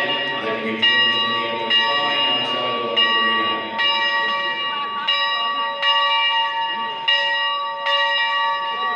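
Bell of the Leviathan 63, a 2009-built replica 4-4-0 American-type steam locomotive, ringing steadily at about one stroke a second. Each stroke rings on into the next and echoes through the large exhibition hall.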